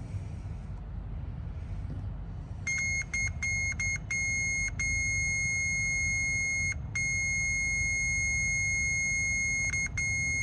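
Digital multimeter's continuity beeper sounding as the test probe touches a glow plug's tip: a few stuttering short beeps as contact catches about three seconds in, then a steady high beep broken twice by a momentary loss of contact. The beep signals a closed circuit through the glow plug.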